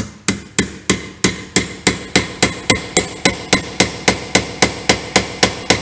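Steady, rapid hammer blows on a flat punch against the lock nut of a Bridgeport milling machine's bull gear shaft, about three and a half strikes a second, each with a short metallic ring. The nut is being driven hard so that it cannot back off.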